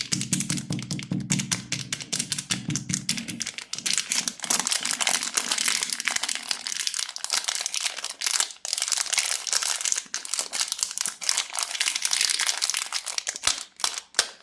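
Plastic candy wrapper crinkling continuously as candy is unwrapped by hand, with a low steady tone under the first few seconds that fades out.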